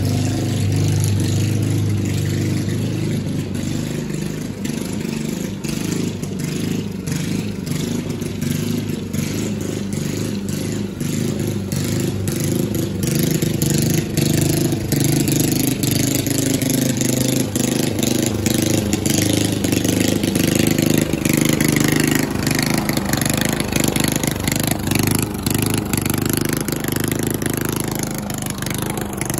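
Gas-powered walk-behind lawn mower running steadily while cutting grass, with light ticks of clippings and debris against the deck. It grows louder about halfway through as the mower comes back toward the microphone.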